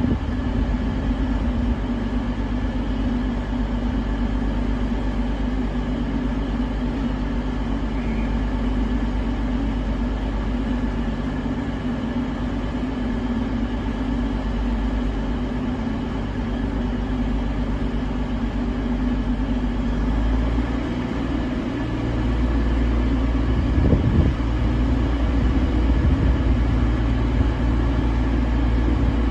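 Class 222 Meridian diesel multiple unit's underfloor Cummins diesel engines running at idle, a steady drone with a steady whine above it. About twenty seconds in the engine note deepens and grows louder as the unit powers up to pull away.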